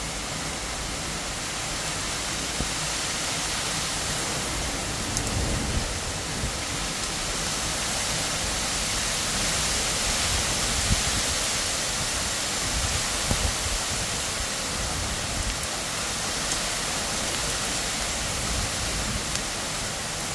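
Heavy rain falling steadily on the leaves of a large tree: an even hiss that swells a little around the middle, with a few sharp ticks scattered through it.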